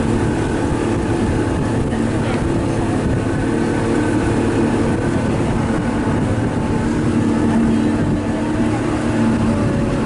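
Motor launch's engine running steadily under way, a continuous drone with several steady tones, over a rough low rumble of wind and water on the microphone.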